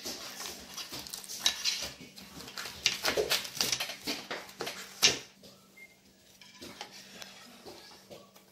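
A knife cutting through the crisp, flaky crust of a layered baked pastry in a round metal tray: crackling and scraping, with the blade clinking against the tray. A sharp clink about five seconds in, then quieter.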